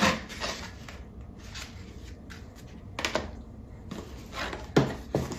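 Paper journal pages rustling and items being handled in a cardboard shoebox, with a few soft knocks: one at the start, one about three seconds in and a sharper one near the end.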